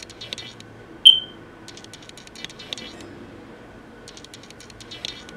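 A damp makeup sponge being dabbed against the skin, heard as quick bursts of soft wet clicks and taps. About a second in there is a single short electronic beep, the loudest sound here.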